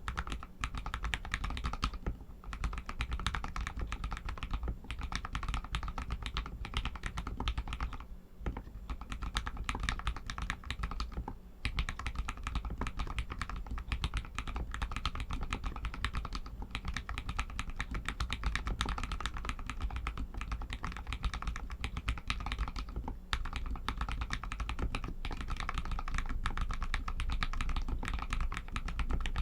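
Fast, continuous typing on an RK61 mechanical keyboard with Outemu Red linear switches, a dense stream of key clacks with only brief pauses.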